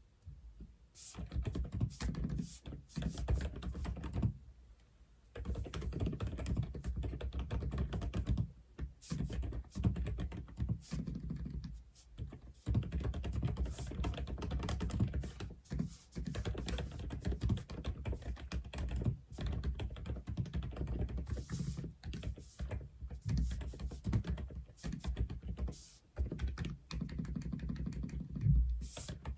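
Steady fast typing on an Aula F87 (독거미) mechanical keyboard: a dense run of key clicks that starts about a second in and stops briefly several times, the longest gap about four seconds in.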